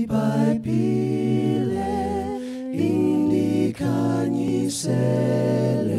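Unaccompanied five-voice vocal group singing a hymn in close harmony, with a low bass voice under held chords that change with each sung phrase.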